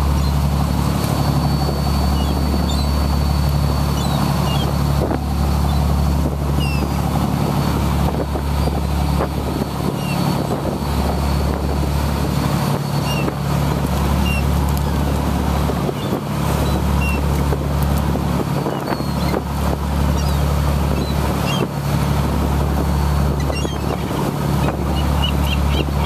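Fishing boat's engine running steadily under way, a constant low drone over the rush of the wake and wind, with a few short, faint cries of seagulls flocking at the stern.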